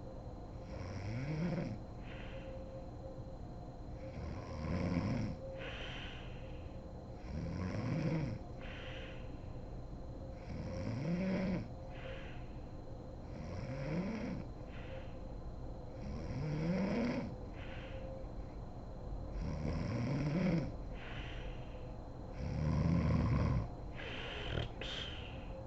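A sleeping woman snoring steadily, with about eight snores, one every three seconds or so, each a rising snore on the breath in followed by a breathy exhale. Near the end the rhythm breaks into a couple of short, sharp breaths.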